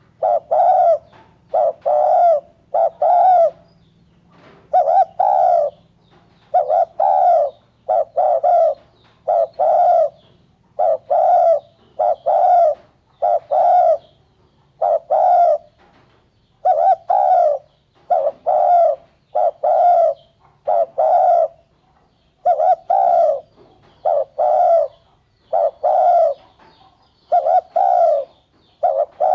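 Spotted dove cooing, loud and close, in short repeated phrases of a few low coos separated by brief pauses.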